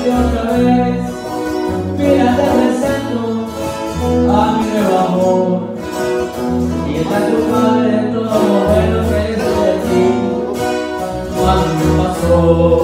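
Two acoustic guitars and an electric bass playing a slow regional Mexican song intro, the bass moving through steady low notes under strummed and picked guitar melody.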